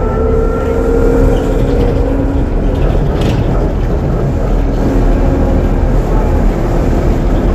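Ikarus 412 city bus running, a steady low engine drone with a whine over it that fades a couple of seconds in and comes back about five seconds in. A short hiss sounds about three seconds in.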